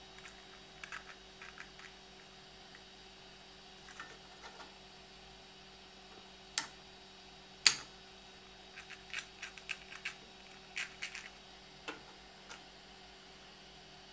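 Light clicks and clacks of hard plastic as the jointed legs and head of a 3D-printed PLA elephant are moved by hand: scattered single clicks, two sharper ones midway, then a quick run of clicks in the second half.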